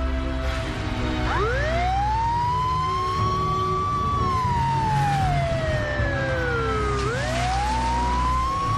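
Police car siren wailing, over steady background music: the tone rises about a second in, holds high, slides slowly down, then rises again near the end.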